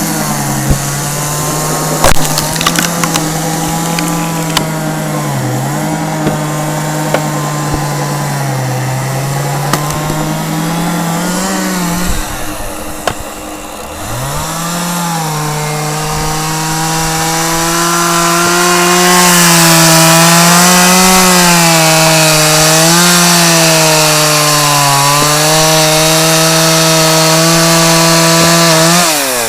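Two-stroke chainsaw running at high revs and cutting wood. The revs waver under load, sag and nearly die about halfway through, then climb back; the saw is louder while cutting in the second half, and the revs fall away right at the end.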